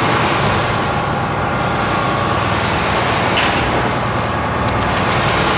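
Steady, loud rushing and rumbling noise of a ferry crossing in rough weather, with a few faint clicks near the end.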